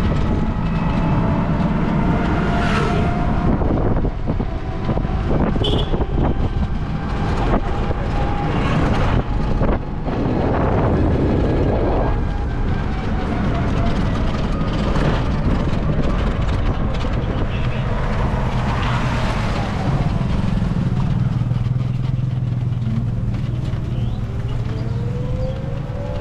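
Ride in a battery-powered e-rickshaw (toto): steady road rumble and hiss with scattered knocks and rattles, and a whine rising in pitch near the end.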